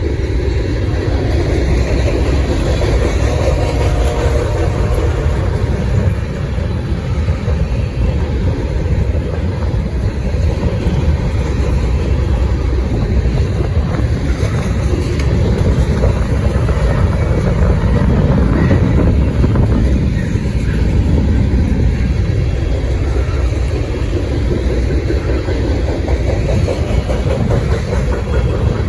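Freight train rolling past: a loud, steady rumble of steel wheels on the rails.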